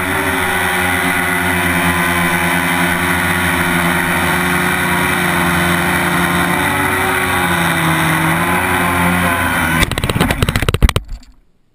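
A quadcopter's electric motors and propellers run steadily, their pitch wavering as the throttle changes. About ten seconds in the copter hits the grass: a quick, loud clatter of propellers striking grass, then the motors cut out.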